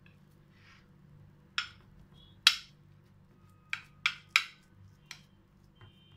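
A steel spoon clinking against a glass container about six times while pressing and smoothing a thick carrot mixture into it; the loudest clink comes about two and a half seconds in.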